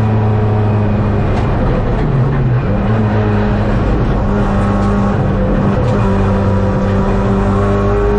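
Race car engine heard from inside the cockpit at speed, over tyre and road noise. The pitch dips briefly about two seconds in, holds steady, then climbs near the end as the car accelerates.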